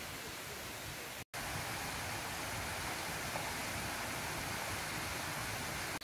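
A forest stream running over rocks, a steady rushing of water. It cuts out for an instant about a second in, then comes back slightly louder.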